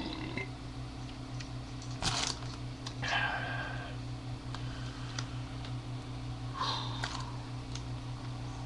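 The tail of a man's burp right at the start, then a steady low hum with a few short, brief noises about two, three and seven seconds in.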